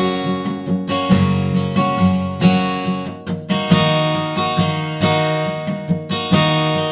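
Strummed acoustic guitar music with a steady rhythm.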